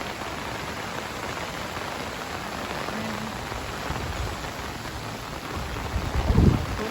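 Rain falling steadily, an even hiss, with a low thump about six and a half seconds in.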